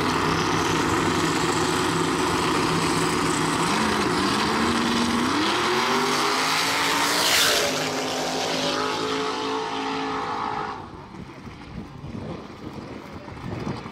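Drag racing cars at the starting line, their engines held at steady high revs, then climbing in pitch as they launch. The sound is loudest about seven seconds in, then fades as the cars pull away down the track and drops off near eleven seconds.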